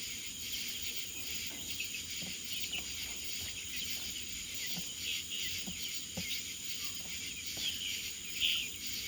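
Steady high-pitched insect chorus, like crickets, with faint scattered clicks and a few short chirps.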